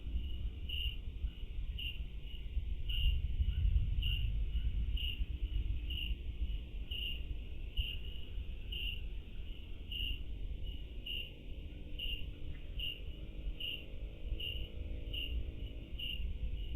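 An insect chirping, a short high chirp repeating about once a second, over a steady low rumble. A faint hum comes in during the second half.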